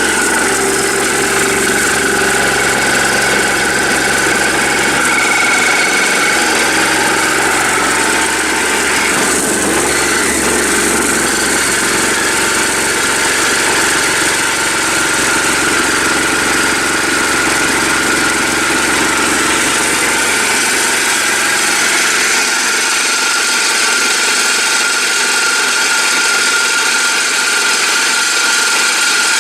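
Homemade vibrating tumbler driven by a washing machine motor, running loudly with glass-bead media, its legs not yet padded with rubber on an uneven floor so it rattles. A low hum under the noise drops away about three-quarters of the way through.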